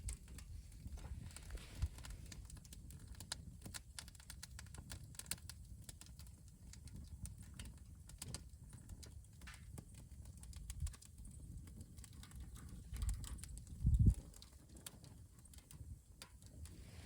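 Wood campfire crackling, with irregular sharp pops and snaps over a low rumble. A louder low thump comes about fourteen seconds in.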